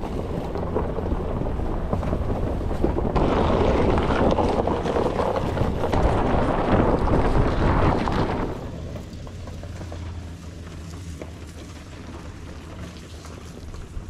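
Pickup truck driving on a dirt track: a steady low engine rumble with rushing tyre and wind noise on the microphone, loudest for the first eight seconds or so, then dropping to a quieter steady run.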